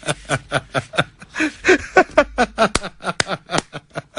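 Laughter: a long run of short 'ha' pulses, about four a second, set off by a joke in a studio conversation.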